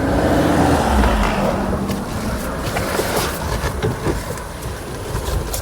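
Suzuki Jimny 5-door's 1.5-litre four-cylinder petrol engine running under load as the car is driven in reverse up a rough incline, with scattered clicks and crackles over the engine's rumble.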